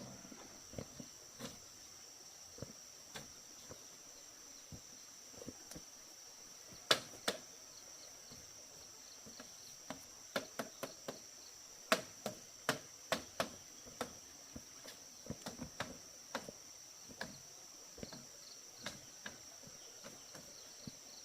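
Irregular sharp knocks and taps, a few at a time and busiest in the middle, over a steady high-pitched insect drone.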